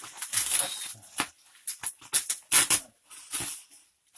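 Packing material rustling and crinkling in irregular bursts as it is pulled and torn off a boxed radio by hand.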